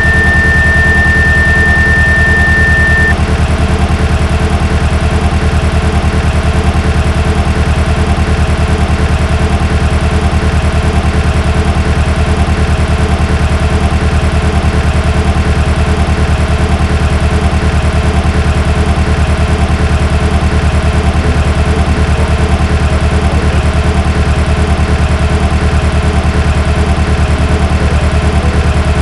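Simulated car engine idling steadily but unevenly with a misfire, the fault traced to a failing ignition coil (code P0354, the cylinder 4 coil circuit). A steady high beep sounds over it for the first three seconds.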